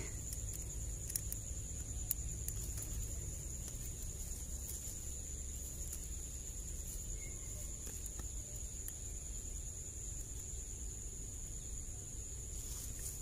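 Steady high-pitched chirring of insects over a low rumble, with a few faint clicks from hands setting a steel spring rat trap in the grass.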